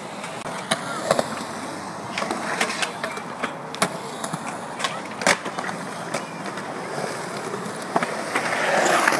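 Skateboard wheels rolling on a concrete skatepark, broken by repeated sharp clacks of boards striking the concrete. The rolling noise swells near the end as riders pass close.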